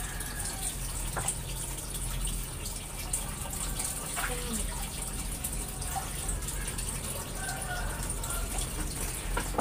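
Steady running-water hiss with small clicks and knocks as food is handled in a plastic basin of water.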